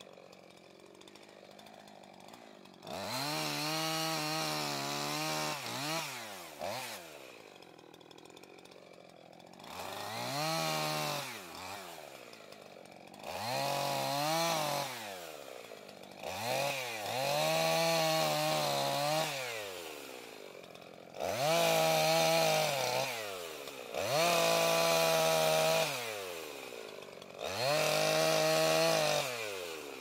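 Husqvarna two-stroke chainsaw idling, then revving up about seven times as it cuts through a fallen maple limb, the pitch rising as it bites and dropping back to idle between cuts.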